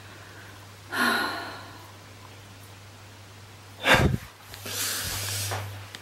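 A short snort about a second in, then a heavy thump of handling noise just before four seconds and rustling as the camera is moved, over a steady low hum.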